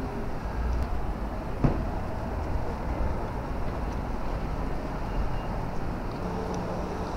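Outdoor ambience at a busy expressway service area: a steady low rumble of road traffic and vehicles, with one sharp click about a second and a half in and a low steady hum joining near the end.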